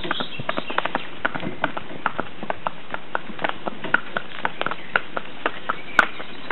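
Hooves of a pair of carriage ponies clip-clopping at a walk, an uneven patter of several hoofbeats a second over a steady background noise. One sharper, louder click comes about six seconds in.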